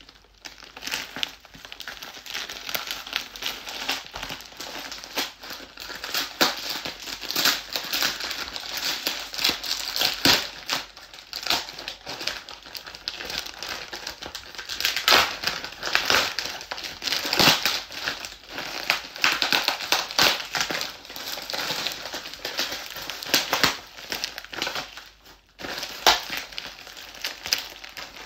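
Parcel wrapping being crinkled and torn open by hand during an unboxing, in irregular crackles that dip briefly near the end.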